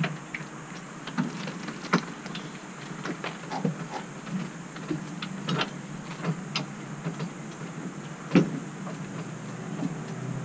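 Hallmark pop-top truck camper roof being raised with the hand crank from inside: a string of irregular clicks and knocks from the lift mechanism and roof panels, over a low steady hum.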